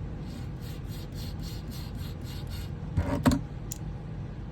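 Sharpening stone rubbed in quick back-and-forth strokes along a marker-inked shear blade, about three strokes a second, testing a 50-degree angle. The strokes stop a little past halfway, followed by two sharp knocks.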